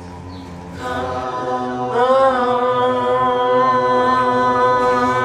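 A woman's voice chanting one long held note into a microphone. It comes in about a second in, swells louder with a slight bend in pitch about two seconds in, and then holds steady.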